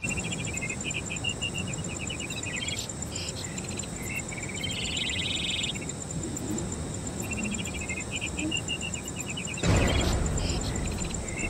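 Insect chirping in pulsed trills, with a pattern of trills that comes round again about seven seconds later. A low rushing rumble swells in about ten seconds in and is the loudest sound.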